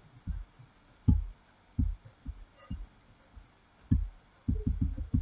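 A series of short, dull, low thuds at uneven intervals, about a dozen in all, with a quick run of five or six close together near the end.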